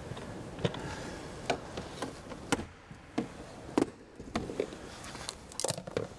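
Plastic retaining clips of a Jeep Grand Cherokee's interior door panel cracking loose one after another as the panel is pried off the door: a run of sharp cracks, roughly one a second.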